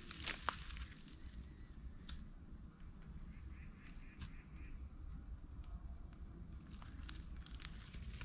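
A steady, high-pitched insect drone, with scattered crackles and snaps of dry grass and twigs being handled, the sharpest about half a second in.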